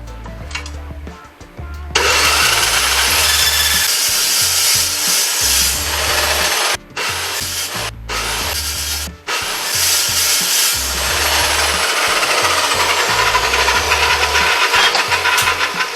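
Power tool cutting metal: a loud, steady, rasping noise that starts about two seconds in and drops out briefly three times, over quieter background music.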